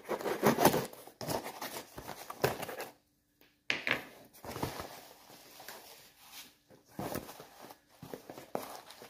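Parcel packaging being torn open and crinkled by hand: irregular ripping and rustling of paper and plastic wrap, broken by a short silent gap about three seconds in.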